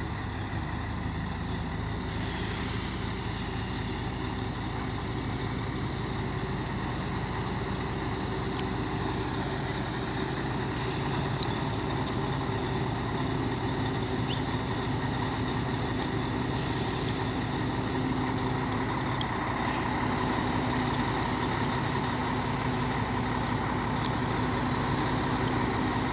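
Heavy truck's diesel engine running steadily under way, its drone swelling slightly toward the end, with a few short hisses over it.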